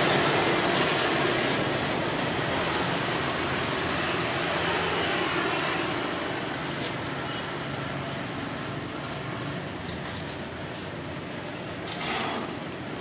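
Small motorcycles passing on the street, their engine noise fading away over several seconds and leaving steady traffic noise.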